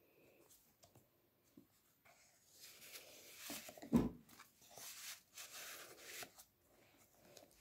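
Stiff card pages and fold-out flaps of a handmade scrapbook being handled, with soft paper rustling and a dull thump about four seconds in as a flap is folded down against the book.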